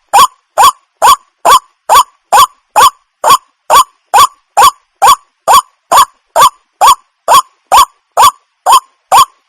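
White-breasted waterhen ("wak-wak" bird) calling: a loud, evenly repeated "wak" note about twice a second, each note short and rising in pitch.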